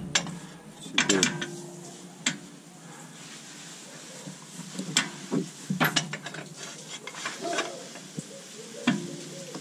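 Metal clinking and scraping as a steel castor correction plate and a long bolt are worked into place on a LandCruiser 80 Series front radius arm mount. There are several separate sharp knocks, clustered about a second in and again around the middle.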